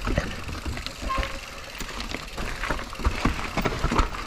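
Mountain bike clattering over rough, rooty ground: irregular knocks and rattles from the bike, over a low rumble.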